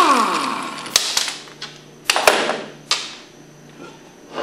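Cordless drill spinning a 9/16 socket on the pump's front-housing bolts, its motor winding down with a falling pitch at the start. Then a few sharp metallic clicks and knocks as tools and parts are handled on the workbench.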